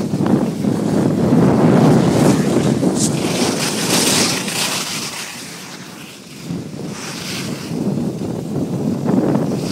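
Wind rushing over the microphone while moving downhill on a ski run, with a hissing scrape of edges on snow that swells about three to five seconds in. It eases briefly past the middle, then picks up again.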